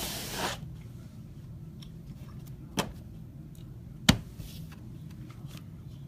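Handling noise on a table: a brief rustle, then two sharp knocks about a second and a half apart, the second the louder, over a steady low hum.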